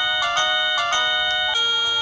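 DIGOO DG-SD20 wireless doorbell receiver playing an electronic chime melody through its small speaker, a string of clear pitched notes. About one and a half seconds in, the tune changes to a different pattern of notes.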